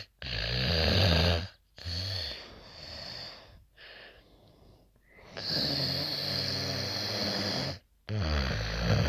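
A person snoring loudly after taking the opioid painkiller tramadol: a series of deep, rattling snores separated by short pauses, with the longest lasting about two seconds and a quieter, fainter stretch in the middle.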